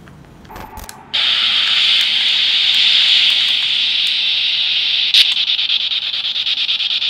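Spirit box switched on about a second in: loud, steady radio static as the scanning radio sweeps rapidly through stations, with a fast flutter from the sweep. A single click about five seconds in.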